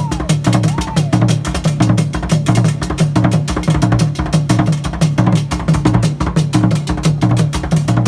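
Fontomfrom ensemble of large Akan drums beaten with curved wooden sticks. Deep low drum strokes repeat in a steady pattern under fast, dense stick strikes.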